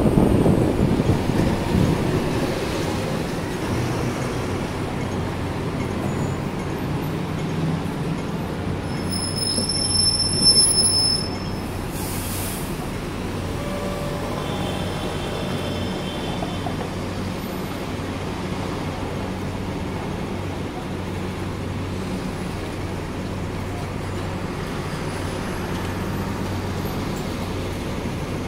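Hong Kong double-decker electric tram running along its street track, heard from the upper deck: a steady low motor hum over the rumble of the wheels on the rails. About ten seconds in, the sound swells with a brief high-pitched squeal.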